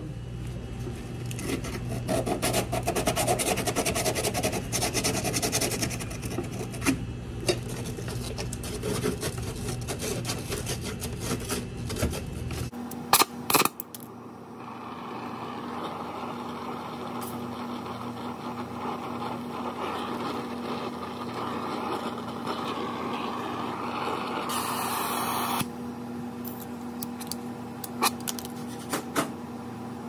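Tools and copper tubing being handled and scraped over a steady low hum. About 13 seconds in, a brazing torch flame starts burning with a steady hiss while it heats the copper refrigerant line joints at the compressor.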